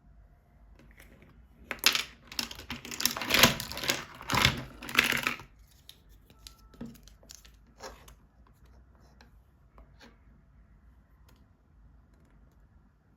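Plastic toy packaging being handled: a few seconds of loud crinkling and tearing about two seconds in, then scattered light clicks and taps of small plastic toys.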